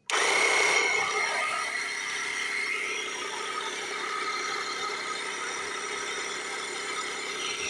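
12-volt low-pressure air pump switching on and running with a steady whir. It is pressurising a fuel tank to push the fuel through a hose into a truck. It starts abruptly, is a little louder for about the first second, then settles to an even level.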